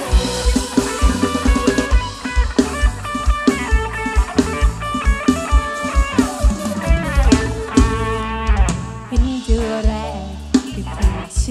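Mor lam sing band playing an instrumental passage: a plucked-string lead runs quick melodic lines over a steady drum kit beat and bass.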